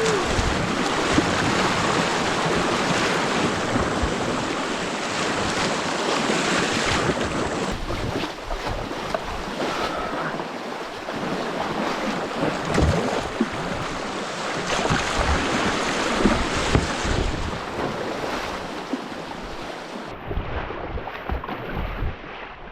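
Rushing whitewater of a flooded river, heard from a kayak on the water, with wind buffeting the microphone and scattered low knocks; the rush eases toward the end.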